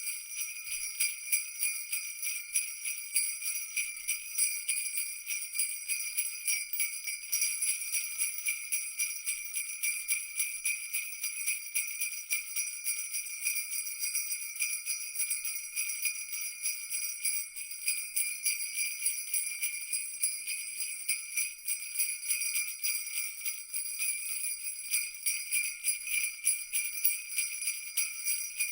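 Jingle bells shaken continuously in a fast, irregular jingle, with a bright high ringing and no low tones.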